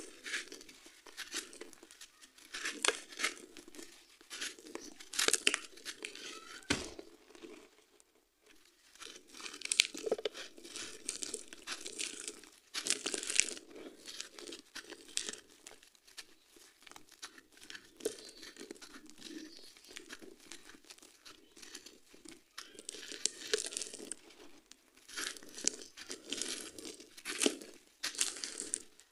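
Dry sand-cement lumps crushed and crumbled by hand, gritty crunching and crackling in irregular bursts as the chunks break and the grit falls. A single low thump comes about seven seconds in, with a short lull just after.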